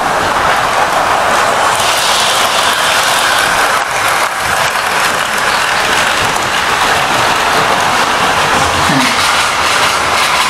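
Model railway train running round the layout: a steady rattling whir of its motor and wheels on the track.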